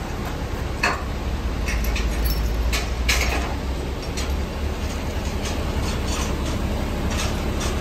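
JCB 16C-1 mini excavator's diesel engine running steadily at idle, with scattered light metallic clinks.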